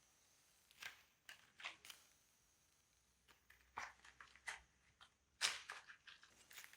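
Irregular short scrapes and clicks, about a dozen, the loudest about five and a half seconds in.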